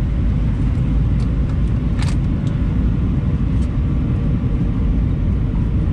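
Steady low vehicle rumble heard from inside the cabin, with a sharp click about two seconds in.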